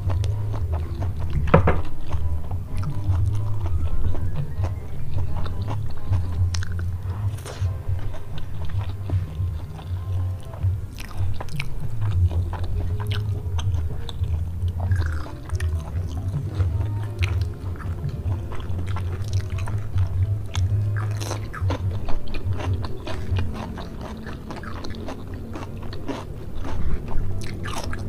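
Close-miked chewing and mouth sounds of a person eating spicy stir-fried squid and rice by hand, with many short wet clicks and smacks, over background music.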